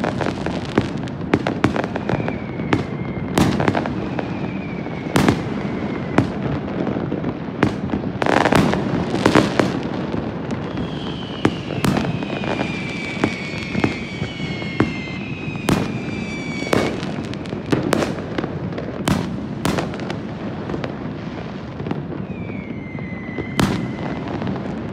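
Fireworks going off across a city: many sharp bangs and crackles over a continuous rumble of distant bursts. Several whistles fall in pitch around the middle, and another comes near the end.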